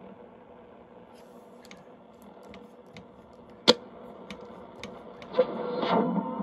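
Vintage Lafayette HE-80 shortwave receiver's speaker hissing with static between stations, with scattered clicks and crackles, one sharp and much louder a little past halfway. About a second before the end a station's audio comes up out of the static as the set is tuned onto it.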